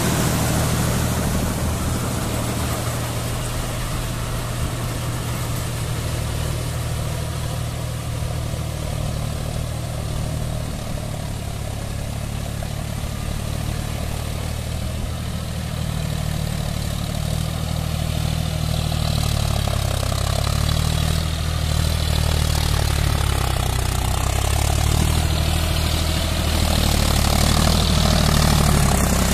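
John Deere 5050D tractor's three-cylinder diesel engine running steadily under load as it drags a rotavator through a flooded paddy field for puddling. It grows louder near the end.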